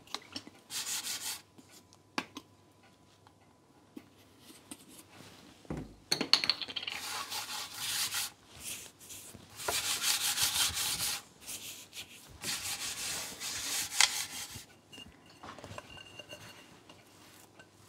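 A hand rubbing and wiping flat across a cutting board in several strokes, each one a second or two long, with quiet gaps between them.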